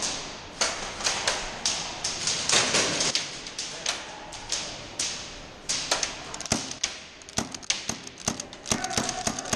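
Airsoft guns firing: a string of sharp, irregular clacks and cracks, some in quick runs of several shots, thickest in the second half.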